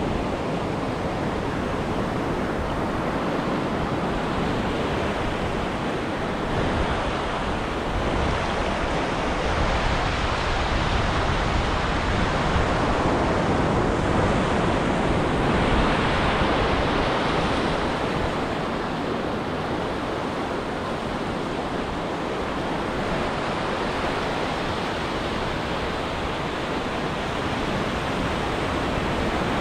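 Ocean surf breaking and washing onto a beach: a continuous rushing wash that swells and eases, loudest about halfway through.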